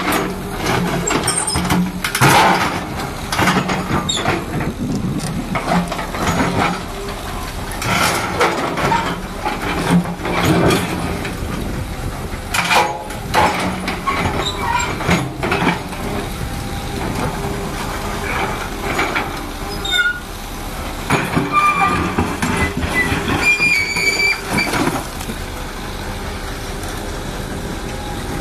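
O&K wheeled hydraulic excavator working: its diesel engine runs steadily and surges again and again under hydraulic load, with clanks and scrapes of the steel bucket as it digs into the earth and swings toward the dump truck.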